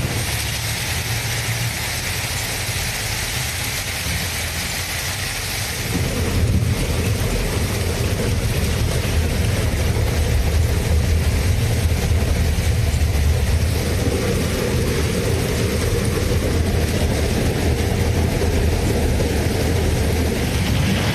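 Heavy downpour of rain, a steady rushing hiss, over a low rumble that gets louder about six seconds in.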